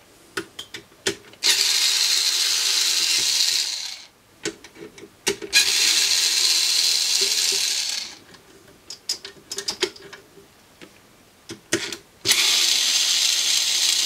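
Electric screwdriver with a Torx bit running in three runs of about two and a half seconds each, backing out tight case screws, with small clicks and knocks between the runs.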